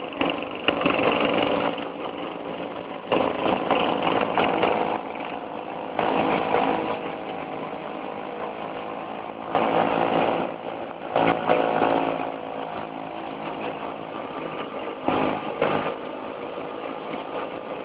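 Several two-stroke Vespa scooter engines running together as a group rides along, heard from a moving scooter, with louder surges every few seconds.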